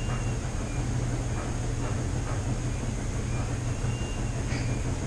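Steady hum and rumble of household machines running, the washer, dryer and 3D printer, with a few faint short high whines.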